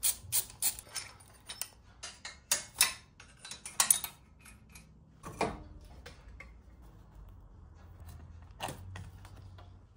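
Metal hand tools and engine parts clinking and clacking during hand disassembly of a motorcycle engine. The clinks come in quick succession for the first few seconds, then only now and then.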